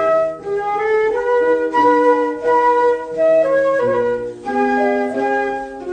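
Instrumental break in a children's song, with no singing: a melody of held notes played over sustained chords.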